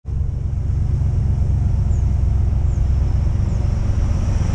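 Work van's engine idling, a steady low rumble heard inside the cab, with three faint high chirps about two, three and three and a half seconds in.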